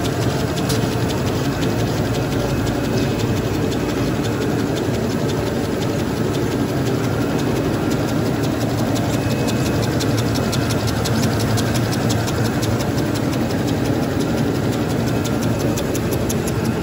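Automatic V-fold facial tissue folding machine running at speed: a steady mechanical clatter of rollers and folding mechanism, with a rapid fine ticking throughout.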